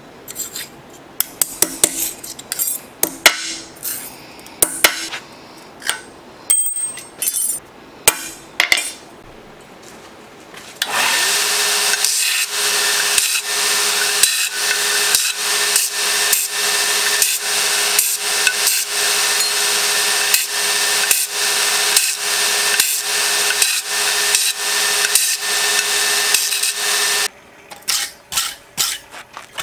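Scattered metallic clicks and knocks of steel parts on a steel bench. About eleven seconds in, a motor-driven grinder starts grinding a steel rod, loud and steady with a constant hum, for about sixteen seconds. It stops suddenly and is followed by a wire brush scraping hot steel on an anvil.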